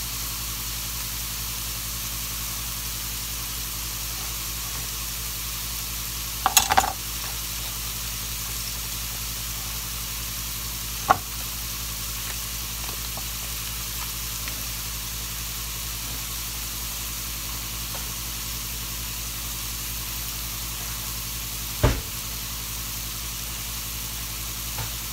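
Filet mignon steaks and mushrooms sizzling steadily as they sear in a cast iron skillet. A few sharp knocks stand out above the sizzle: a short cluster about six seconds in and single ones about eleven and twenty-two seconds in.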